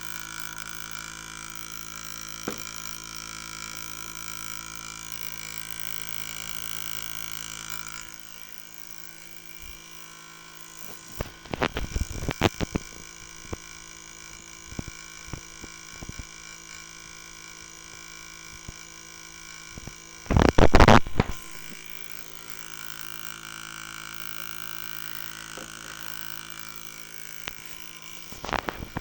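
Electrical hum and buzz from a switched back-EMF circuit: a steady hum with many overtones that drops out after several seconds, then bursts of crackling buzz as the switch is worked, the loudest about two-thirds of the way through.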